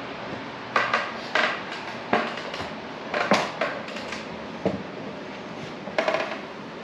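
Light clicks and knocks at irregular intervals, about a dozen in all, with a small cluster near the end, over a steady low hiss.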